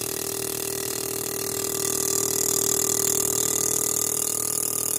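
Fuel injector cleaning and test machine running during a cleaning cycle on a 4A-FE engine's injectors: a steady mechanical hum, with a hissing spray growing louder about two seconds in.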